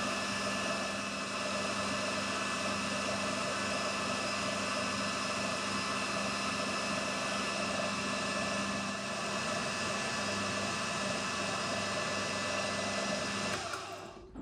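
AL960 metal lathe running steadily, several held tones of motor and gearing over a hiss, as it takes a light finishing cut along a 4140 steel Morse taper. The sound winds down shortly before the end as the spindle stops.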